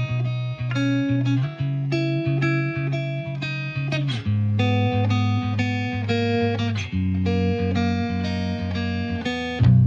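Background music led by guitar: plucked notes in a steady rhythm over a sustained bass line.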